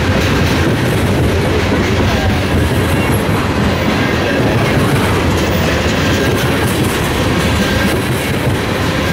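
Freight train cars rolling past at speed: a loud, steady noise of steel wheels on the rails, with no horn sounding.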